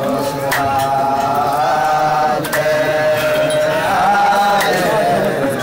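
Chant-like singing: a voice holding long, wavering notes over a sharp beat about every two seconds.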